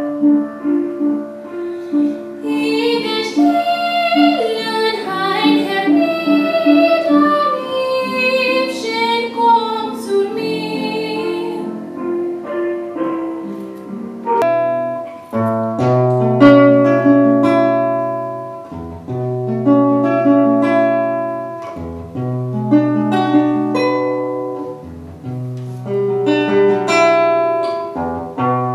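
Music: a melody of plucked notes, then strummed guitar chords over a low held bass note from about halfway through.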